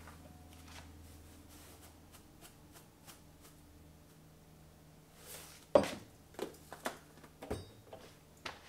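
Quiet kitchen handling sounds: a faint low hum at first, then from about halfway a soft swell and a run of sharp clicks and knocks as plastic containers and spice jars are handled and set down on the counter.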